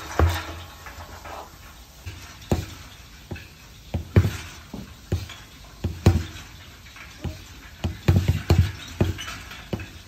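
Fists punching a stack of car tyres hung as a heavy bag: about fifteen dull thuds at an uneven pace, some coming in quick runs of two or three.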